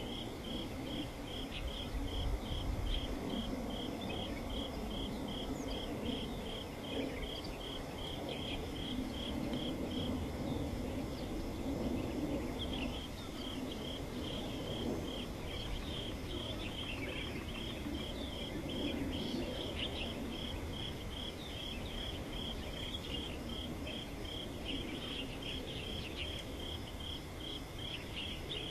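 A cricket-like insect chirping in a steady pulsed rhythm, about three short high chirps a second, breaking off for a couple of seconds partway through, over a low steady rumble.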